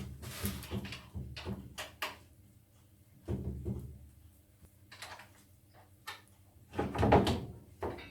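Scattered knocks and clicks as parts of a bandsaw circle-cutter jig are handled and tested for wobble. There is a short clatter about three and a half seconds in and a louder run of knocks about seven seconds in.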